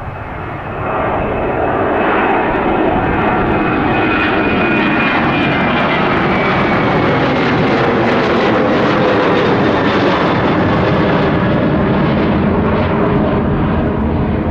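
Boeing 737-900 jet departing at close range. Its CFM56-7B turbofans are loud and steady from about a second in, with a high whine that slowly falls in pitch as it passes.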